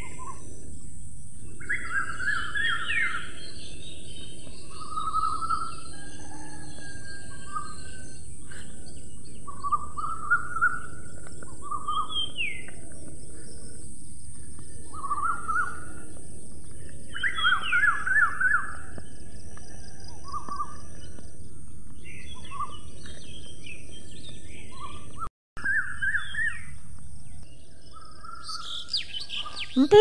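Parakeets calling: short rising chirps and squawks in bursts every second or two, over a steady high hiss. The sound cuts out for a moment near the end.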